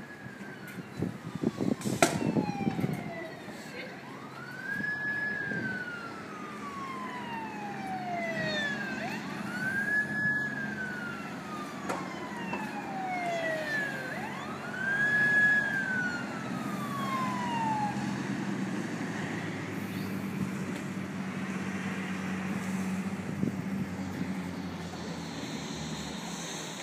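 Emergency vehicle siren wailing, four cycles about five seconds apart, each rising quickly and then falling slowly, stopping about two-thirds of the way through. A low engine hum runs underneath.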